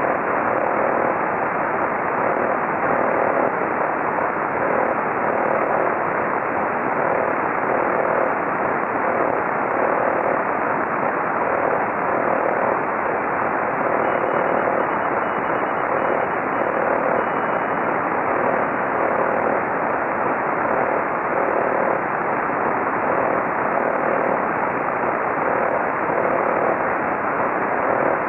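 Radio receiver tuned to the 28 MHz (10-metre) band, giving a steady hiss of noise with a faint tone pulsing about once a second underneath. The source of the interference is unknown: it could be local noise or widespread.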